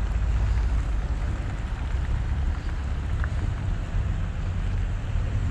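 Cars driving past on a wet, slushy road: a steady hiss of tyres on the wet surface over a low rumble.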